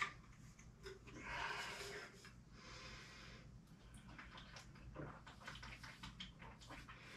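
Faint breathing and quiet sounds of a person drinking from a water bottle, with a breath about a second in and a few small clicks.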